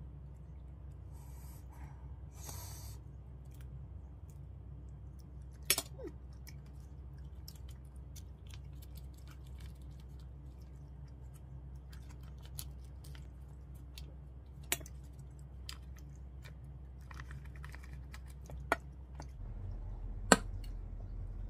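A metal fork clicking sharply against a ceramic plate a few times, with rustling of a plastic kimchi pouch being handled near the start, over a steady low hum.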